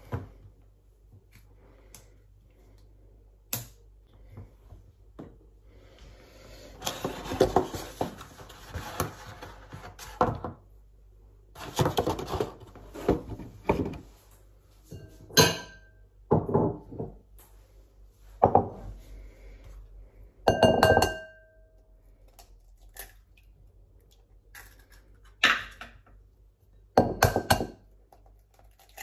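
Kitchen clatter of baking things being handled: a string of knocks and clinks on the worktop and bowls, one clink ringing briefly like glass. Near the end an egg is knocked against a bowl and cracked open.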